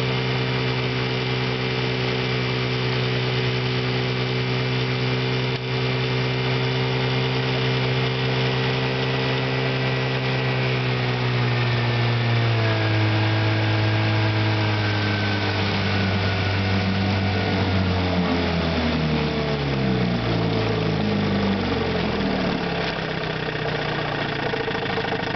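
1958 Johnson CD-15 5.5 hp outboard, a two-stroke twin, running steadily at speed, then throttled back: its pitch falls gradually from about halfway through and drops further to a slower run near the end.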